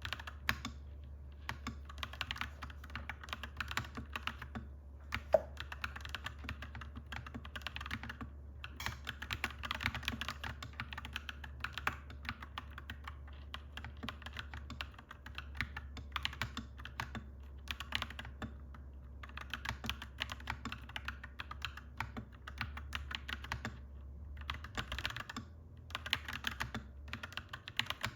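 Mechanical keyboard typed on continuously in clacky runs of keystrokes, broken by brief pauses, over a steady low hum. One sharper click about five seconds in stands out above the rest.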